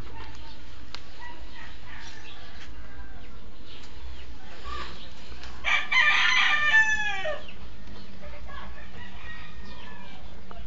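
A rooster crowing, loudest about six seconds in, with fainter fowl calls around it over a steady low rumble.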